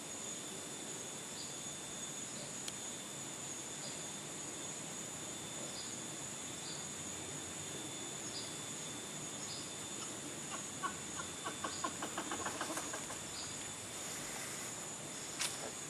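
Forest ambience: a steady, high-pitched insect drone with short chirps repeating about once a second. About two-thirds of the way through, a rapid rattling call runs for two or three seconds, and a sharp click sounds near the end.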